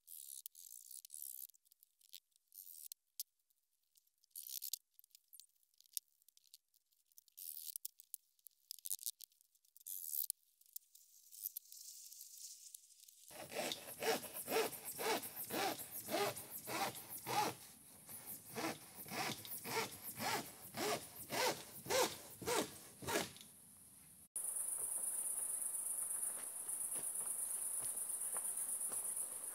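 A rhythmic clicking beat, thin and trebly at first and fuller from about halfway, stops abruptly. For the last few seconds it gives way to the steady high chirring of crickets at night.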